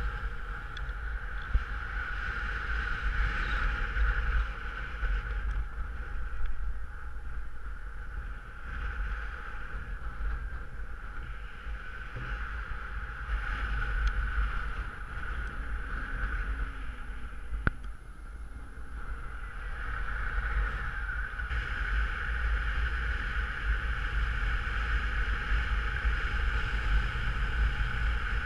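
Airflow rushing over a paraglider's harness-mounted camera in flight: a low buffeting rumble of wind on the microphone under a steady hiss that swells and eases, with two brief clicks, one near the start and one about two-thirds through.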